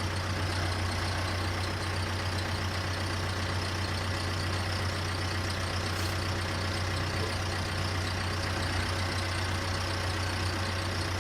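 An engine idling steadily, with a strong, even low hum.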